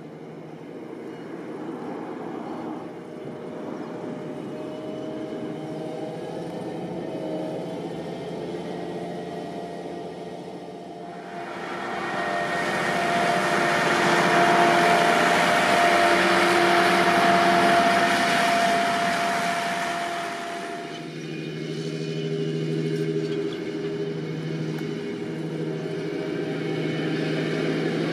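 Vredo VT3306 self-propelled slurry injector's diesel engine running as the machine drives across the field, growing louder as it approaches. It is loudest while passing close by, from about twelve to twenty-one seconds in, with a steady whine over the engine noise, then runs quieter and lower near the end.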